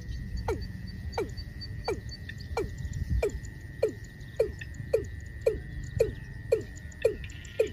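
Watercock calling: a steady series of short, deep notes, each dropping in pitch, repeated about one and a half to two times a second and getting slightly faster.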